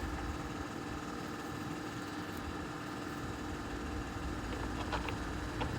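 Steady mechanical hum with a low rumble, with a few faint light clicks near the end, like small metal parts being handled.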